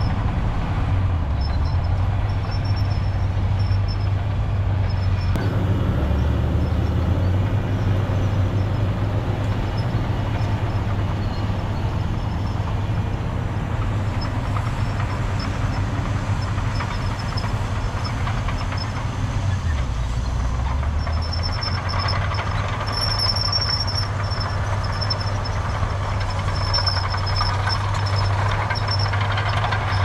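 Diesel engine of heavy earthmoving machinery running steadily. Its low note drops briefly about a second in, again around six seconds in, and once more around twenty seconds in.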